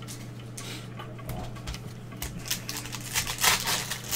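Light ticks of trading cards being handled, then the crinkling and tearing of a foil card pack being opened, getting denser and louder from about two seconds in.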